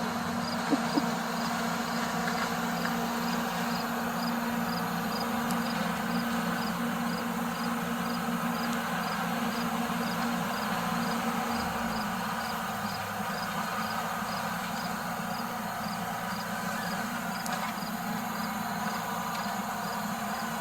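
Compact loader's diesel engine running steadily, with a faint high ticking about twice a second and two sharp clicks about a second in.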